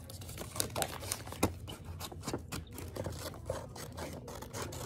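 Scissors cutting paper to trim the edges of a cutout: a string of short, irregular snips.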